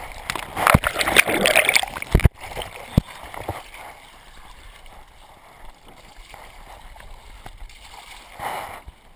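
Water splashing loudly around a body-worn action camera as a racer wades a stream hand-over-hand along a rope. The splashing cuts off abruptly after about two seconds, and a single knock follows. Quieter moving water runs on after that.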